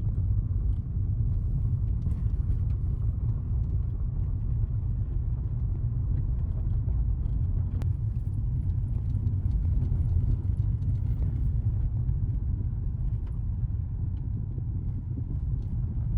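A car being driven, heard from inside the cabin: a steady low road rumble that stays even throughout.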